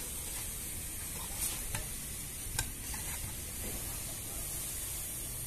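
Steady outdoor background hiss over a low rumble, with a few faint clicks about a second and a half, two and two and a half seconds in.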